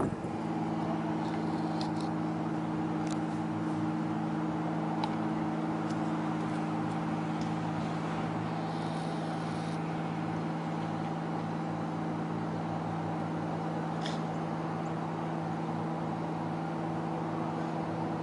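A steady machine hum made of a few held low tones, like a motor running without change, with a few faint ticks over it.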